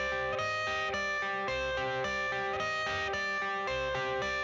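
Background music: a guitar riff with a steady beat, the instrumental intro of a song before the vocals come in.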